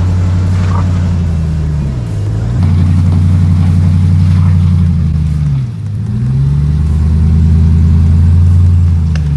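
Ram 1500 TRX's supercharged 6.2-litre Hemi V8 working at low revs while crawling over rocks. The revs drop away and build back up twice, about two seconds in and again near six seconds.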